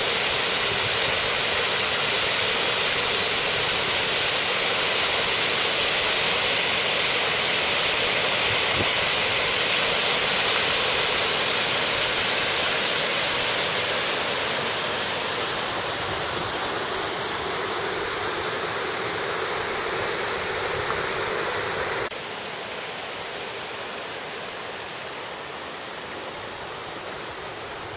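Small waterfall pouring into a river pool, a steady rush of water. It eases off from about halfway and drops suddenly in level about three quarters of the way through.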